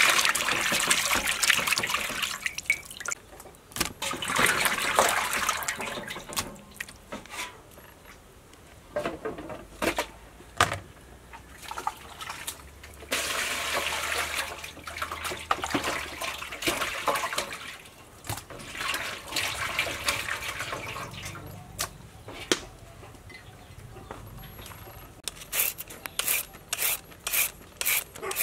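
Hands sloshing and rubbing pieces of beef kidney in a basin of water, with water scooped up and poured over them. Near the end, a julienne peeler scrapes down a carrot in short regular strokes, about two a second.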